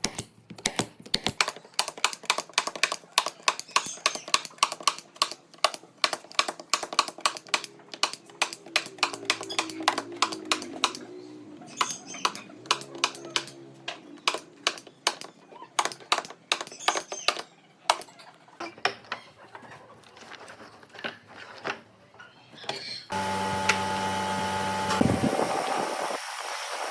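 A long run of light, quick clicks or taps, several a second. About 23 seconds in, an electric tool motor starts abruptly and runs steadily with a hum.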